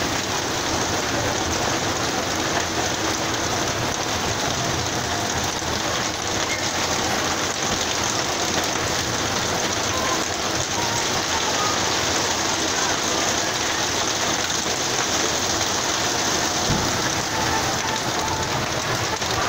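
Torrential wind-driven rain in a violent storm, pouring steadily and without let-up onto pavement and parked vehicles.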